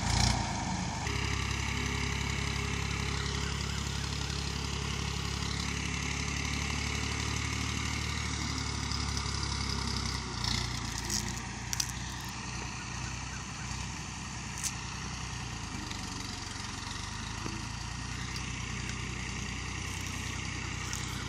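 Massey Ferguson 240 tractor engine running steadily while the tractor works soil with its blade, growing somewhat quieter about ten seconds in. A few short clicks and knocks come over it soon after.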